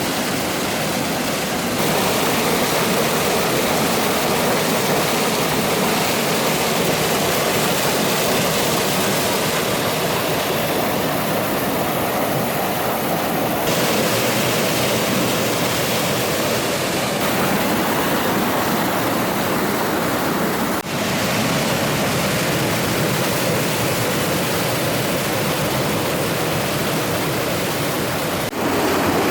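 Steady rushing of a gorge stream and waterfall, water pouring over rocks. Its tone shifts abruptly a few times.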